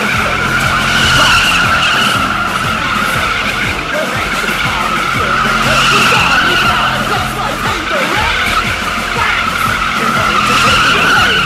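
A car's rear tyres squealing continuously through a smoky burnout while doing doughnuts, with the engine held at high revs underneath. The squeal swells and eases about every four to five seconds as the car comes round.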